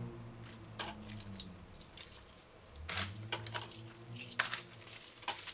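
Hands moving ingredients and containers about on a kitchen countertop: a scattering of light knocks, taps and plastic-bag rustles. A steady low hum runs underneath.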